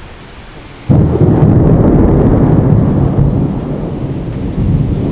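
Thunder: a sudden, very loud clap about a second in, followed by a long, deep rolling rumble that slowly eases off.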